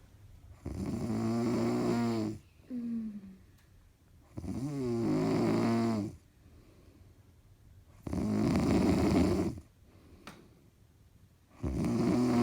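Very loud snoring: four long, rasping snores, each lasting over a second and coming about every three and a half seconds, with quieter breathing between them.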